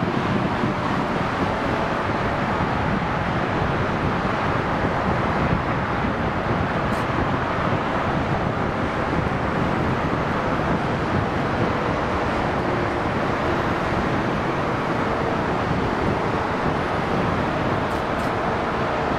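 Steady noise of busy motorway traffic, cars and lorries passing, mixed with the engines of a Boeing 747-8F taxiing nearby.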